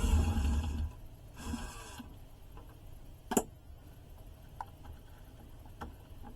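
Cordless drill/driver running in two short bursts on stripped screws in a wooden amp cabinet, then a single sharp click and a few light ticks.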